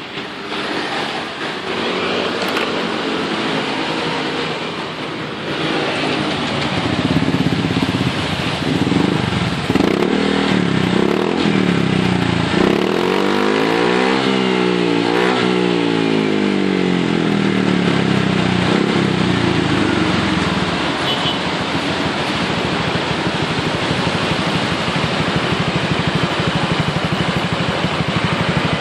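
Honda Vario 125 scooter's single-cylinder engine running through a custom aftermarket exhaust. The engine speed rises and falls several times in the middle, then settles to a steady run.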